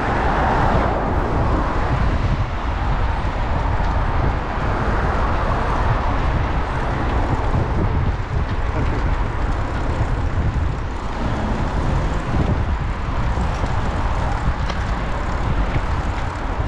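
Steady road traffic noise from cars passing on a busy main road, over a constant low rumble.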